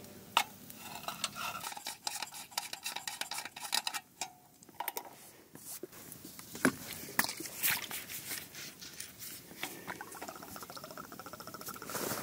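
Metal utensils clinking and scraping against camp cookware: a string of sharp clicks and knocks with scraping in between.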